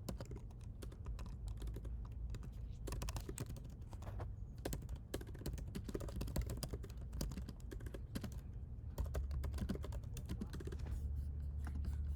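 Computer keyboard typing: quick, irregular key clicks, while a steady low hum grows stronger from about nine seconds in.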